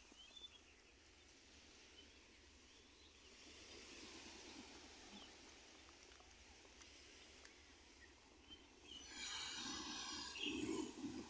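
Faint outdoor ambience with a few short, high bird chirps, then a louder rustling burst about nine seconds in that lasts a couple of seconds.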